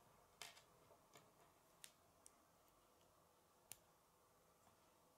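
Faint, scattered clicks of K'nex plastic rods and connectors being handled and snapped together, about five separate clicks over a few seconds.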